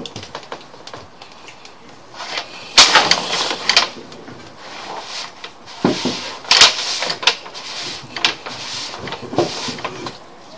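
Sewer inspection camera's push cable being fed by hand down a vent into the drain pipe: irregular knocks and clatters with short bursts of scraping as the cable and camera head move along the pipe.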